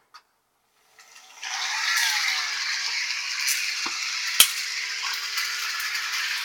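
Model train running along the layout track: a steady rattling whir of wheels and motor that starts about a second and a half in, with a sharp click near the middle.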